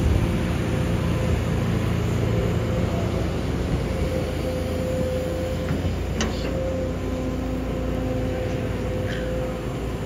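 Kobelco SK200 hydraulic excavator's diesel engine running steadily under load as its bucket digs into soil, with a steady higher whine over the low drone. A couple of short sharp clicks come through, about six and nine seconds in.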